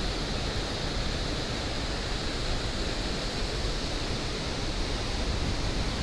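Waterfall pouring over rock ledges into a pool below: a steady, even rush of falling water.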